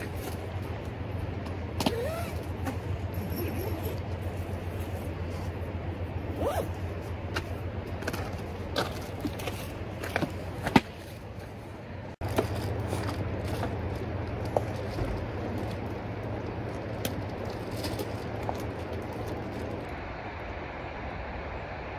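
Handling noises from a nylon dome tent: rustling, light clicks and scrapes, with a sharp knock near the middle, over a steady low hum.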